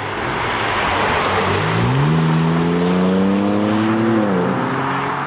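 BMW M3 G81 Touring's single-turbo inline-six accelerating hard, its engine note climbing for a couple of seconds and then falling away a little after four seconds in.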